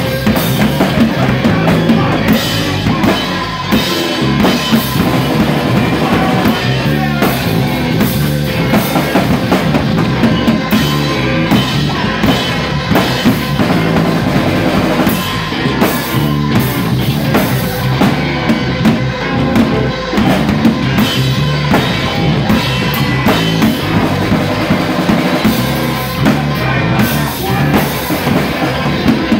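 Rock band playing live, with the drum kit and bass drum loud in the mix.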